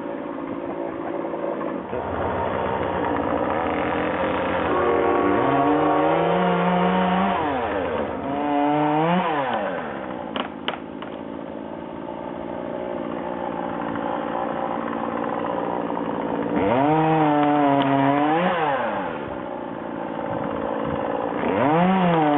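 Two-stroke chainsaw running, its engine speed rising and falling four times, in cuts into a maple tree. A couple of sharp clicks come about halfway through.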